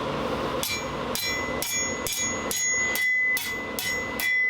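Hand hammer striking hot steel on an anvil while drawing it out, about two blows a second, eight in all, starting under a second in. Each blow is followed by a bright ring from the anvil that carries on between strikes.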